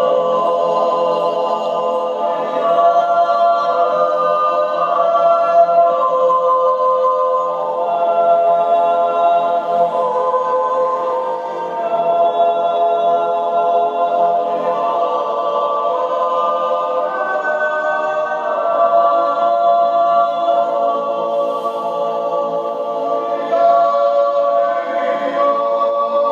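Background music: an a cappella choir singing long held chords.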